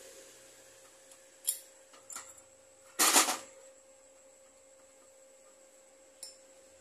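Metal parts being handled on a workbench: a few light clicks, then a louder metallic clatter about three seconds in and one more click near the end, over a faint steady hum.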